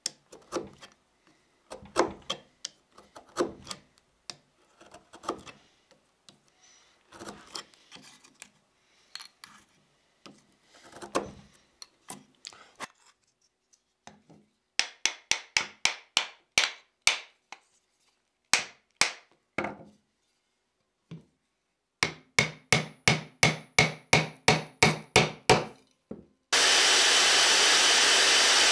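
Hand work on an axe handle: a wood chisel pares a small hardwood wedge in short scrapes and taps. Then come quick runs of hammer blows, about four a second, as the axe head is set on the handle. Near the end a bandsaw starts and runs steadily as the handle end is trimmed.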